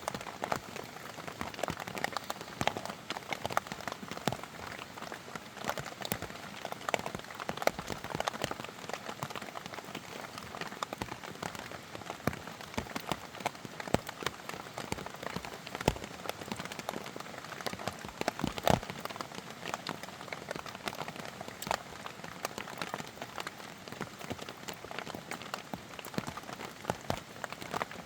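Steady rain pattering on surfaces, with a dense scatter of sharp drops and taps.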